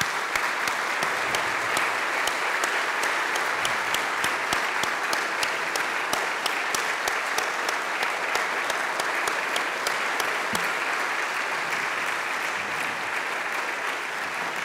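Audience applauding: a long, dense round of many people clapping, easing off slightly near the end.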